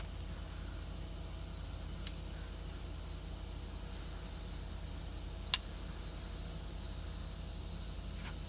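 Carrier Comfort series heat pump outdoor unit running: a steady low hum, with one sharp click about five and a half seconds in.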